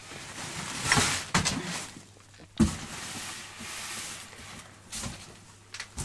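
Rustling of plastic sacks and cardboard boxes being shifted and pulled about by hand, with a sharper knock about two and a half seconds in.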